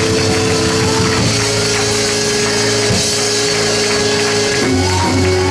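Church band music: sustained chords over a drum kit and tambourine, the chord changing about a second in and again near the end.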